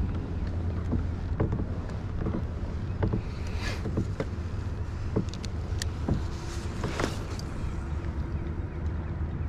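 Handling noise from a spinning rod and reel on a kayak: scattered light clicks and knocks over a steady low rumble, as the rod is cast and the reel worked.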